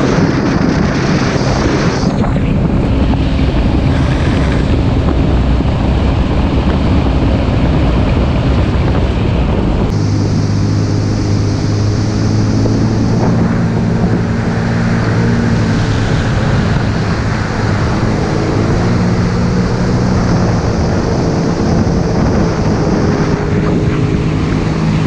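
Jet ski engine running at speed, with wind buffeting the microphone and water rushing past the hull. The engine note changes abruptly about ten seconds in.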